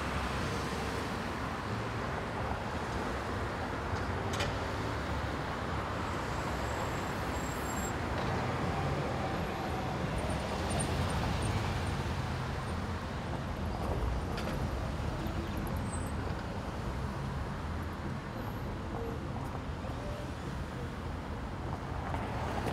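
Steady outdoor street ambience with traffic running.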